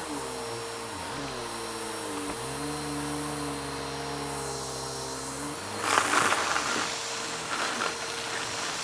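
Vacuum cleaner running with a steady hum whose pitch shifts slightly in the first few seconds. About six seconds in, and again near the end, there is crackling as crunchy mess-test debris is sucked up.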